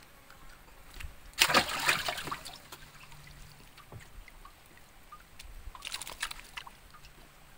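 River water splashing and sloshing as hands work in it over the side of a wooden boat. A louder splash comes about a second and a half in, and a shorter one about six seconds in.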